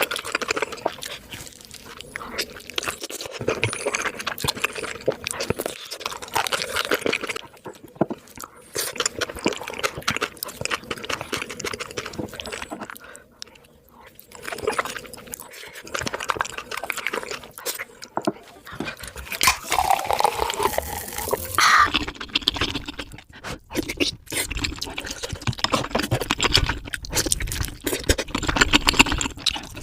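Close-up eating sounds sped up: rapid crunching of crispy fried chicken in hot sauce, with wet chewing and smacking. A short rising higher-pitched sound comes about twenty seconds in.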